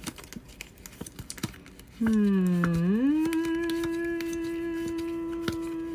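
A woman's vocal stim: a drawn-out voiced sound that starts low and dips, then slides up about three seconds in and holds one steady note for about three seconds. Before it, faint light clicks of handling.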